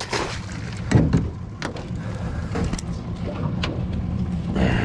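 Knocks and clatter of a mud crab pot and crabs being handled on the deck of a small boat, a sharp knock every second or so, over a steady low hum.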